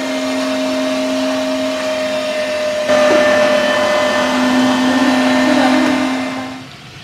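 Electric meat grinder running with a steady motor hum as lentils are pushed through it and ground; it gets louder about three seconds in and fades out near the end.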